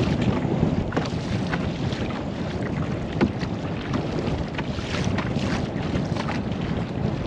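Water lapping and dripping around a paddled kayak, with many small drips and splashes and one sharper tap about three seconds in, over steady wind rumble on the microphone.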